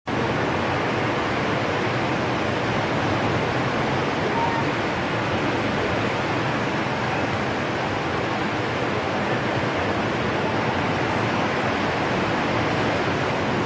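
Ocean surf on rough seas: a steady, unbroken rush of breaking waves.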